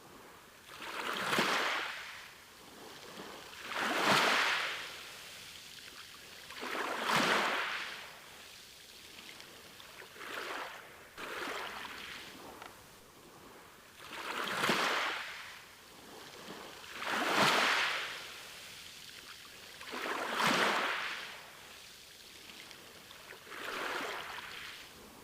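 Sea waves breaking and washing up a beach, a rushing surge that swells and fades about every three seconds.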